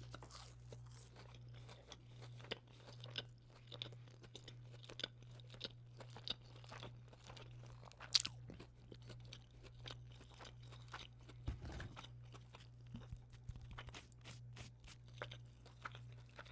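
Close-miked chewing of a chicken tender: irregular crunches and wet mouth clicks, the loudest crunch about eight seconds in, over a steady low electrical hum.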